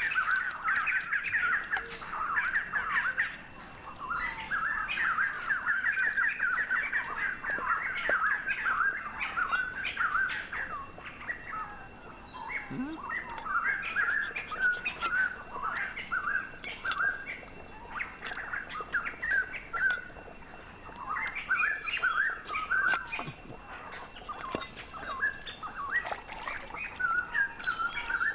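Birds chirping busily throughout, with sharp scraping clicks now and then from a cleaver scraping scales off a fish.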